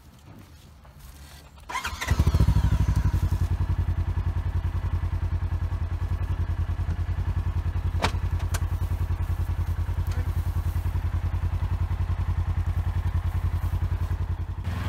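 A vehicle engine starts about two seconds in and then runs steadily at idle with a fast, even putter.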